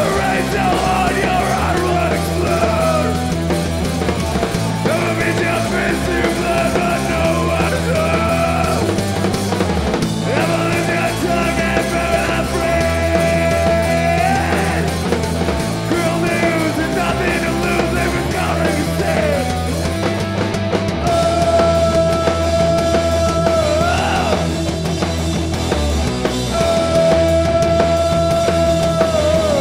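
Rock band playing a punk-leaning song live, with a singer yelling and holding long notes over the band.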